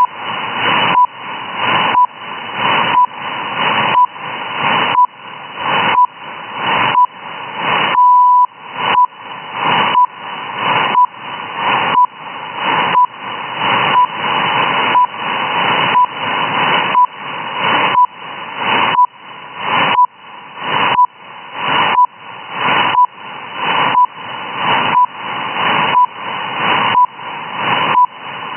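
RWM shortwave time signal received on a single-sideband radio: a short 1 kHz beep once every second over radio static, with one longer beep about eight seconds in marking the start of a minute. The static swells between beeps and dips at each one.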